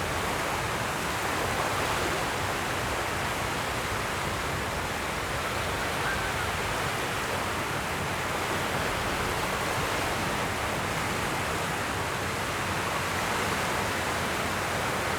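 Steady, even wash of ocean surf on a beach, with no distinct wave breaks standing out.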